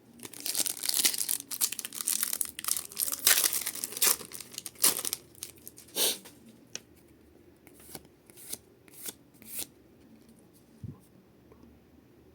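A foil Pokémon booster pack being torn open and crinkled: a few seconds of dense ripping and rustling, then a handful of separate crinkles that die away about three-quarters of the way through.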